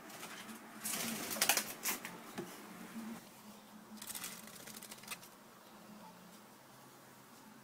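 A wet myna chick flapping its wings in two bursts of rapid fluttering, about a second in and again about four seconds in. Its soaked feathers keep it from taking off.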